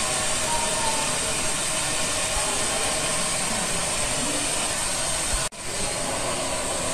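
Steady whirring hiss of model trains running on a layout, with faint distant voices underneath. The sound cuts out for an instant about five and a half seconds in.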